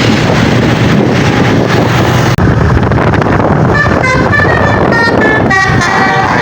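Bus basuri 'telolet' musical horn playing a quick run of stepped notes from about halfway in. Before that there is loud, rushing wind and road noise.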